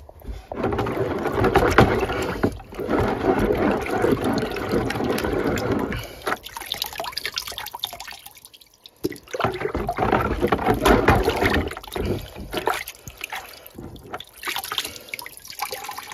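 Dirty central-heating system water sloshing and splashing in a bucket as a Worcester magnetic filter insert is plunged and swished through it to rinse off sludge, in two main spells with a lull between. The black water is laden with magnetite.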